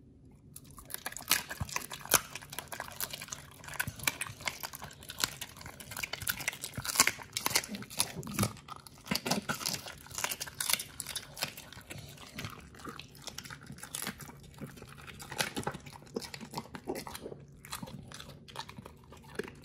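A pit bull crunching and chewing a raw duck wing, the bones cracking in a rapid run of sharp crunches with wet chewing between them. The crunching thins out near the end.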